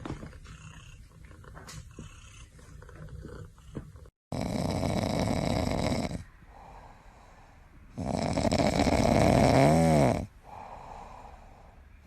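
A pet snoring loudly in slow, long breaths, one about every four seconds, the second ending in a short wavering tone. Before that, after a cut, there are faint scattered clicks.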